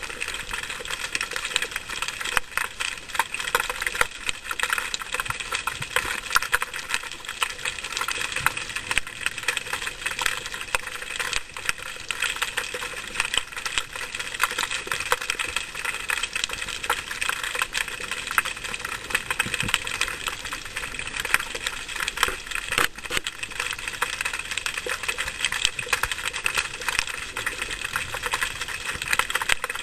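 Underwater ambience: a steady, dense crackle of countless tiny clicks.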